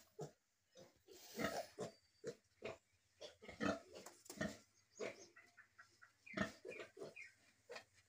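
Piglets suckling at a sow, making many short grunts and squeaks in quick, irregular succession.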